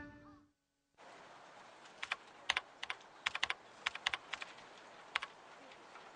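Fingers typing on a computer keyboard: uneven runs of sharp key clicks over a low room hiss, starting about two seconds in and stopping about a second before the end.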